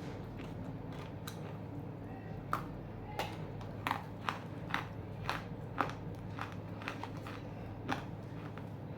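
A person biting and crunching chunks of half-roasted edible clay (Nakumatt clay). About ten sharp, irregular crunches come from about two and a half seconds in to near the end, over a steady low hum.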